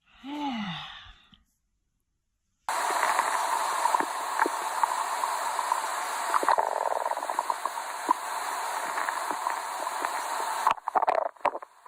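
A hungry man's stomach growling and gurgling: a long hissy rumble with scattered pops starts suddenly about three seconds in, then breaks into choppy gurgles near the end. It is preceded by a short falling vocal sound.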